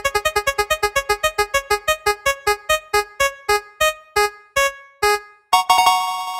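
Spinning prize-wheel sound effect: a repeated electronic keyboard-like note ticking fast and slowing steadily as the wheel winds down, then a brighter held sound about five and a half seconds in as it comes to rest.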